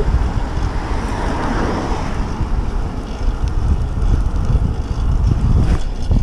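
Wind buffeting the microphone of a camera on a moving bicycle, a steady low rumble, with the hiss of the tyres rolling on wet tarmac.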